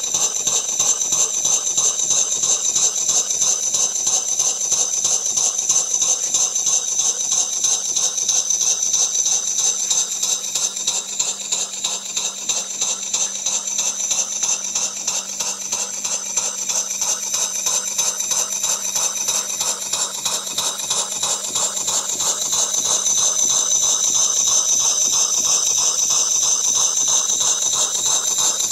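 1896 Sipp model steam engine running on compressed air: a fast, even beat of exhaust puffs, one with each stroke, over a steady high hiss of air.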